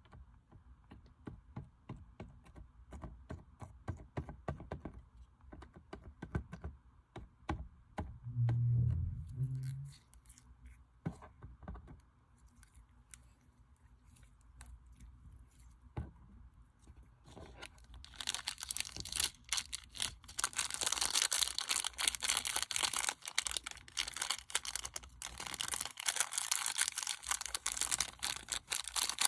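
Slime being squished and pulled by hand: scattered sticky clicks and pops, a loud low thud about nine seconds in, then dense crackling from about eighteen seconds in.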